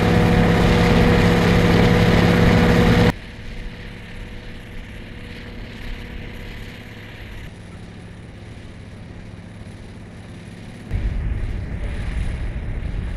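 Cog railway rotary snowplow running hard and throwing snow, a heavy engine noise with a steady hum. About three seconds in it cuts suddenly to a much quieter, more distant steady rumble and hiss, which grows louder again near the end.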